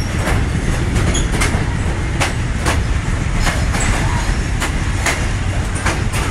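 Excursion train rolling across a steel trestle bridge, heard from an open-air car: a steady low rumble of the wheels on the rails, broken by sharp, uneven clicks of the wheels over rail joints, roughly two a second.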